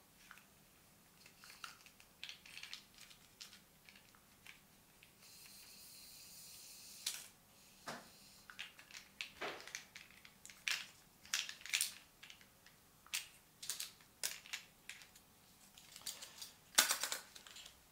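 35 mm film being wound back into its cassette by hand with the rewind crank of a manual SLR: faint, irregular clicks and scrapes from the crank and the film. There is a steady hiss for a couple of seconds about five seconds in, and a louder click near the end.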